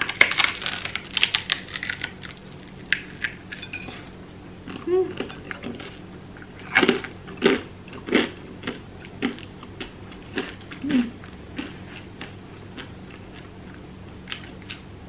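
Crunching and chewing of hard sourdough toast, with a dense burst of crisp crunches at the first bite and then scattered crunches as she keeps chewing.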